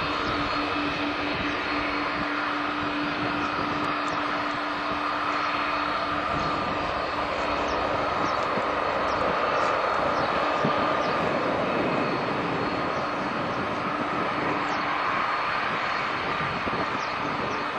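Gulfstream V business jet's twin Rolls-Royce BR710 turbofans running as it rolls along the runway: a continuous jet rush with a steady low drone under it, swelling slightly about halfway through.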